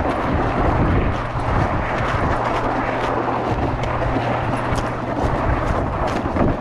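Footsteps crunching quickly over snow-crusted lake ice, under a heavy rumble of wind on the microphone, with a steady low hum beneath that fades out about two-thirds of the way through.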